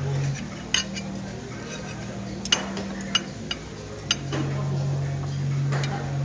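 Dishes and cutlery clinking: about six short, sharp clinks at irregular intervals, the loudest about two and a half seconds in.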